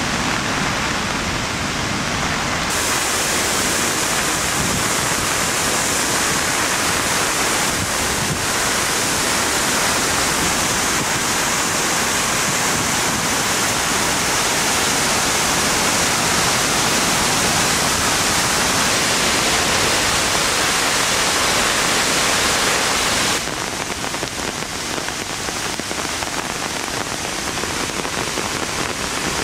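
Flooded Mena Creek falls and torrential rain: a steady, loud rush of water. The sound shifts abruptly in tone a few seconds in and again about six seconds before the end.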